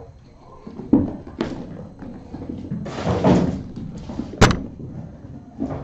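A series of knocks and thuds with a rustling, scuffling stretch around three seconds in and a sharp bang about four and a half seconds in.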